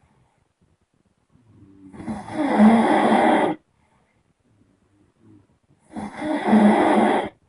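A person snoring: two long, loud, rasping snores about four seconds apart, each building up over a moment and then cutting off, with near silence between them.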